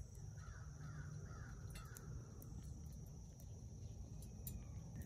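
Wood fire burning in a Solo Stove Lite under a pot: a steady low rush with small scattered crackles. Between about half a second and two seconds in, a bird gives four quick crow-like caws.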